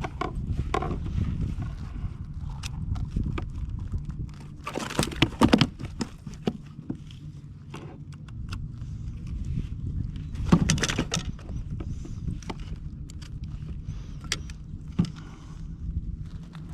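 Scattered clicks and knocks of fishing gear on a kayak while a hooked flounder is brought in, over a steady low rumble. The loudest clatter comes about five seconds in and again about ten and a half seconds in.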